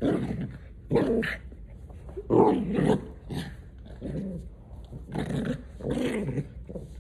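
Small white dog play-growling and barking in short outbursts, about one a second, while being roughhoused.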